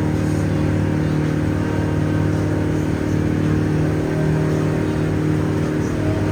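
River ferry boat's engine running steadily while the boat cruises, a constant low drone that holds an even pitch throughout.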